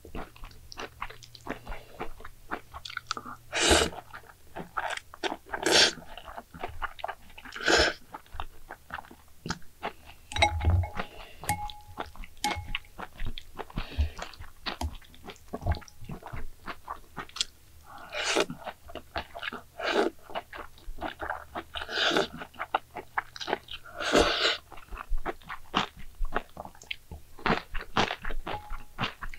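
Close-up eating sounds of egg jajangmyeon noodles: chewing with many small wet clicks, and louder bursts of about half a second every few seconds.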